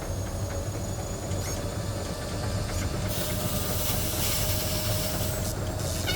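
Animated washing machine running a sped-up wash cycle: a steady low rumble with a hum, and a hiss that grows louder about halfway through.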